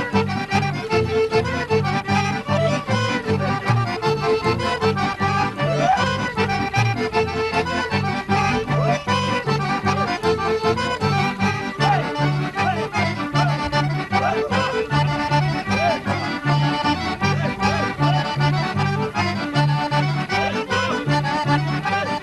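Accordion playing a kolo, a Balkan circle-dance tune: a held, ornamented melody over a steady, evenly pulsing bass beat.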